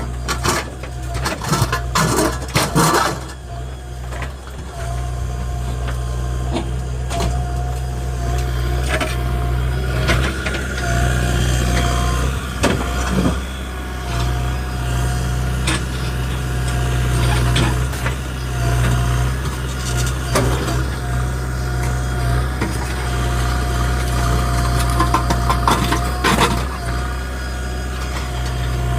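JCB 3DX backhoe loader's diesel engine running steadily, with a steady whine above it. A quick run of metal clanks and knocks comes in the first three seconds, and single knocks follow now and then.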